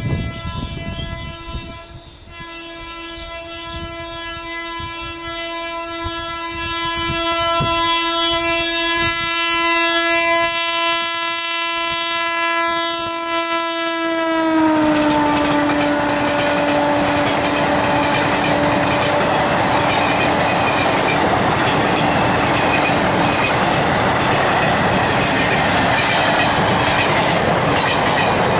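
Indian Railways WAP-4 electric locomotive hauling an express at high speed, sounding one long continuous horn blast as it approaches. The horn drops in pitch as the locomotive passes, about halfway through, and fades away. The coaches then run past with a loud, steady rumble of wheels on the track.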